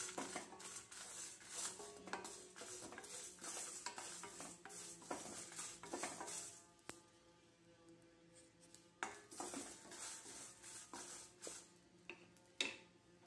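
Spatula stirring and scraping dry whole spices (coriander seeds, black peppercorns, dried red chillies and curry leaves) around a stainless steel kadai as they dry-roast without oil: rattling scrapes that thin out after about seven seconds, with a few sharper clinks near the end.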